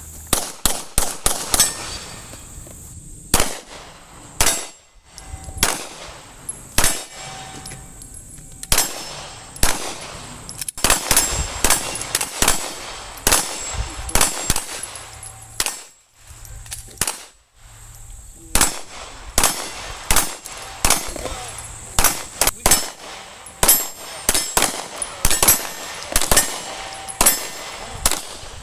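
Handgun shots fired in rapid strings, many in quick succession, with brief lulls between volleys.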